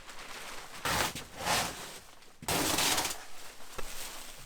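Crackling, ripping noise in three bursts, with scattered crackle between them, as sheet material is pulled away from a cured epoxy lamination.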